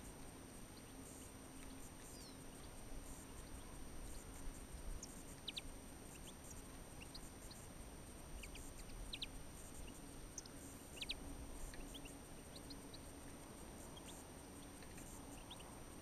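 Small songbirds calling: faint, scattered short, high chirps, a few at a time.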